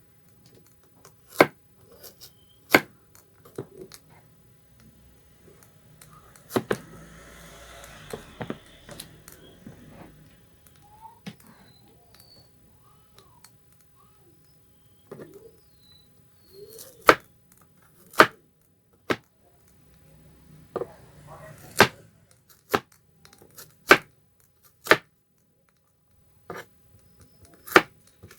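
Knife slicing garlic cloves into small slices: sharp single knocks of the blade, irregularly spaced a second or two apart, with a stretch of soft hiss a few seconds in.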